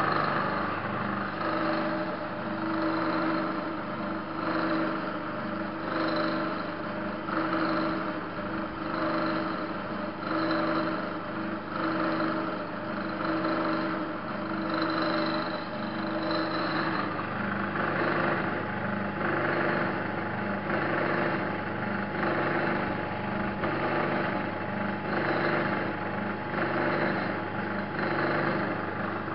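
Electric motor spinning a permanent magnet alternator, powered through a 24-volt low-frequency power inverter, running with a steady hum that wavers regularly. The rig is pulling power from the capacitor bank, which is draining.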